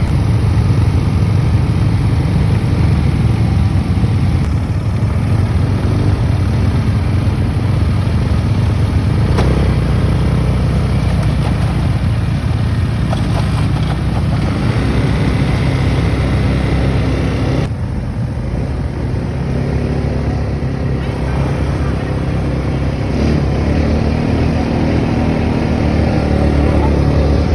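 Motor vehicle engine running steadily, with a strong low rumble that eases slightly about two-thirds of the way through.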